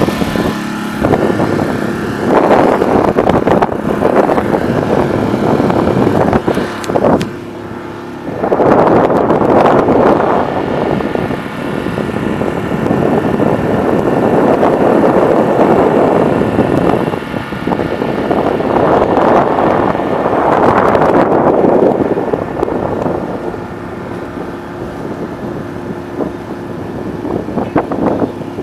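Mercury 5 hp outboard motor running at a steady cruising speed, pushing a 27-foot sailboat. Gusty wind buffets the microphone in repeated surges and at times covers the motor.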